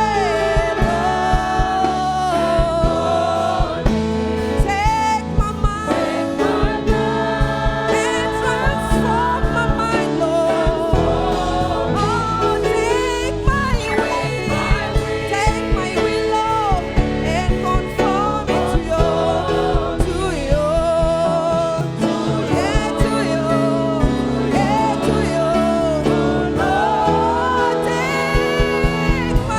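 Live gospel worship music: singers and a choir with a band, with a steady beat.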